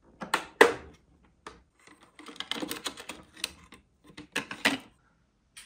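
Hard plastic clicks and snaps from a toy-grade 1/16 RC car's hinged plastic body being opened and its battery pack handled in the compartment: two sharp clicks about half a second in, a rattling run of clicks in the middle, two more clicks near the end and one last click.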